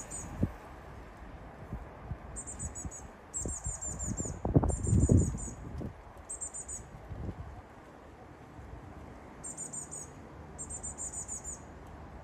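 Blue tit calling in short bouts of rapid, very high chirps, about five bouts with a quiet spell in the middle. A low rumble around four to five seconds in is the loudest sound.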